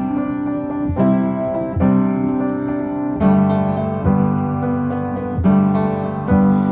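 Background music: an instrumental piano passage with chords struck roughly once a second, part of a pop song between sung lines.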